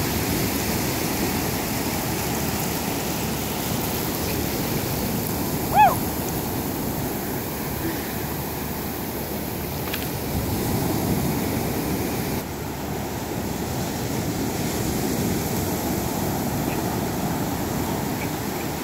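Surf washing onto the beach in a steady rush of breaking waves, with one brief loud high-pitched cry about six seconds in.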